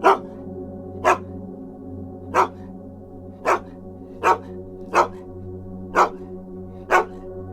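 An animal barking: eight short single barks about a second apart, over steady background music.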